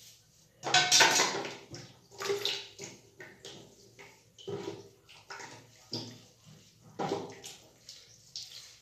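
Wet splashing and squelching as hands work a milk-and-egg mixture through soaked long hair. It comes as a string of short bursts about once a second, the loudest about a second in.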